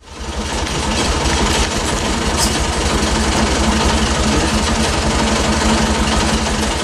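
Narrow-gauge railway locomotive's engine idling, a steady, fast low throb. It fades in over the first second.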